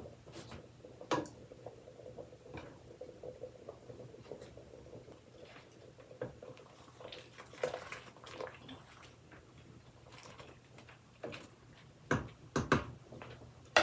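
Soft kitchen handling noises at a steaming pot of noodles on an electric stove: scattered small clicks and taps, such as a wooden spoon stirring in the pot, over a low steady hum, with a few sharper knocks near the end.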